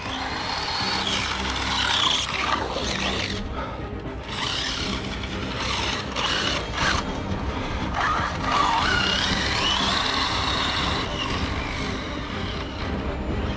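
Brushless electric motor of an Arrma Notorious RC car (SSS 1650 kV on 6S) whining up and down in pitch as the car repeatedly accelerates and slows.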